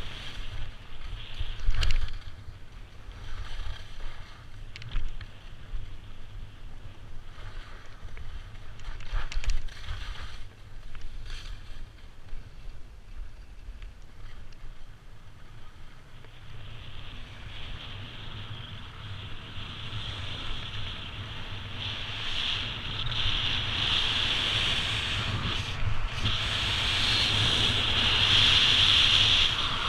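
Skis sliding and scraping over snow during a downhill ski run, with wind rumbling on the microphone; the scraping grows louder and steadier from about halfway through.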